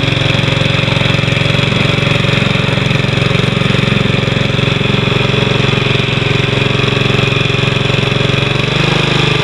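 Honda HRM215 Harmony lawn mower engine running steadily on full choke, just after a cold start in freezing weather. Its speed shifts slightly near the end.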